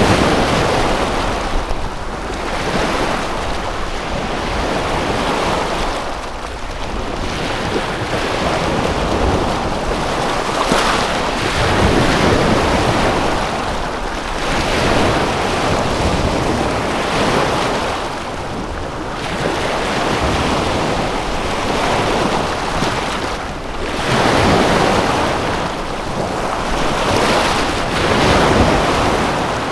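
Waves washing in, a rushing noise that swells and ebbs every few seconds, with a low rumble of wind on the microphone.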